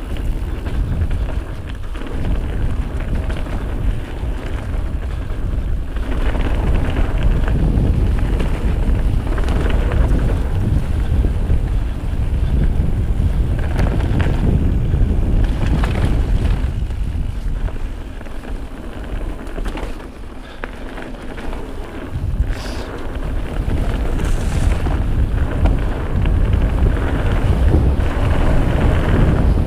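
Wind buffeting the action camera's microphone as a Giant Trance Advanced full-suspension mountain bike rolls fast down a dirt trail, with the rumble of its tyres and scattered knocks and rattles from the bike over bumps. The noise eases for a few seconds past the middle, then builds again.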